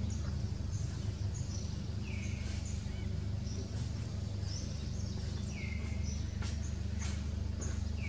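A bird repeats a short call every few seconds, a few high notes and then a lower slurred note, over a steady low background rumble. A few soft clicks come near the end.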